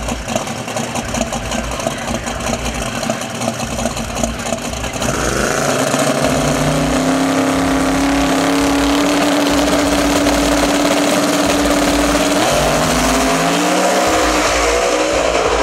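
Twin-turbocharged Ford Lightning drag truck's engine at the starting line: a choppy, uneven idle, then brought up and held at one steady engine speed for several seconds, as when boost is built against the transbrake. About twelve seconds in it launches, and the engine pitch climbs as the truck accelerates away.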